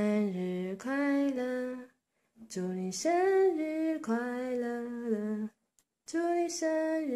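A woman singing slow, unaccompanied held notes in three phrases, with short pauses between them.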